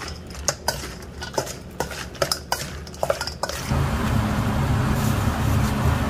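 Irregular clicks and knocks of red crab pieces against a stainless steel bowl as they are tossed by hand. About three and a half seconds in, this changes to a steady rushing and bubbling from a pot of crab and ramen boiling hard on a gas burner while it is stirred.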